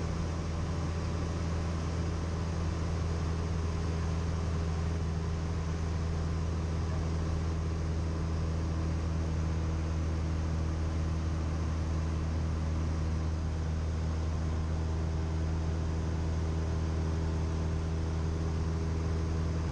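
Cessna 172M's four-cylinder Lycoming O-320 engine and propeller droning steadily in cruise flight, heard inside the cockpit: a constant low hum that holds one pitch throughout.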